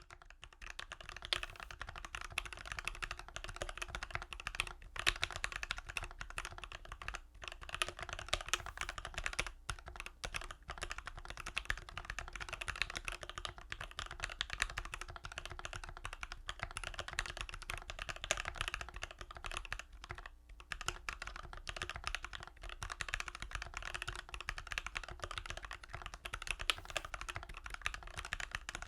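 Continuous fast typing on a YMDK Wings mechanical keyboard with lubed Durock L3/L4 linear switches, screw-in stabilizers and case and plate foam, with a few brief pauses between bursts.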